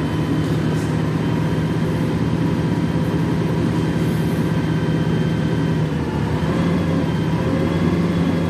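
Engine of a 1976 city bus running steadily, heard from inside the passenger cabin, with a slight rise in pitch about six seconds in.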